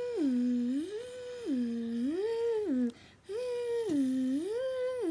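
A voice humming a siren-like two-note scanner sound effect, swinging between a low note and a high note an octave above, about half a second on each, with a short break about three seconds in.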